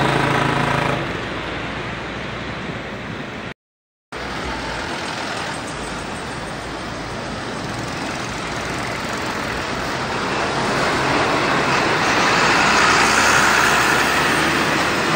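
Roadside traffic of heavy trucks: engine and tyre noise from passing trucks, building to its loudest as a container semi-trailer truck passes close near the end. An engine hum with a clear pitch fades in the first second, and the sound cuts out completely for half a second a few seconds in.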